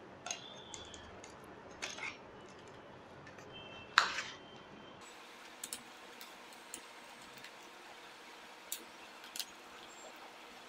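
Scattered small clicks and taps of a screwdriver and the Dell Latitude E6410's plastic and metal chassis parts being handled during disassembly, the sharpest click about four seconds in.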